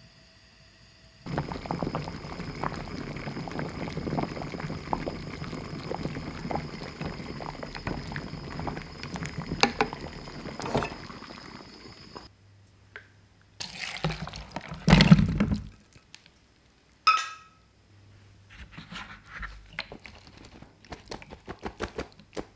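Potato sticks boiling in salted water in a saucepan, a dense bubbling with many small pops for about ten seconds. Then come a few louder clatters, a single sharp click, and light knocks near the end.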